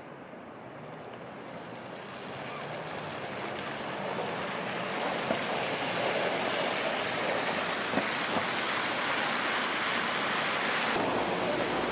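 Road traffic on a slushy, snow-covered street: tyres swishing through slush, growing louder over the first few seconds as vehicles come up the hill, then holding steady.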